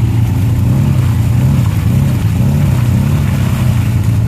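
Side-by-side UTV engine revving unevenly under load as the machine churns through a deep mud hole, stuck or nearly stuck, its pitch rising and falling several times.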